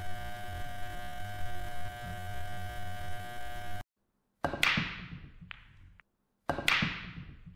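A steady electrical hum with a few steady tones, cutting off suddenly after about four seconds. After a short silence come two sharp clicks about two seconds apart, each fading out in a long echo, with a fainter click between them: a cue striking a snooker ball.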